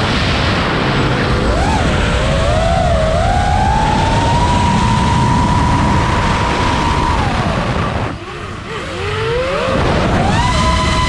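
FPV quadcopter's brushless motors whining over a rush of wind, the pitch rising and falling with the throttle. About eight seconds in the throttle drops: the whine falls, goes quieter and wavers, then climbs back and holds steady near the end.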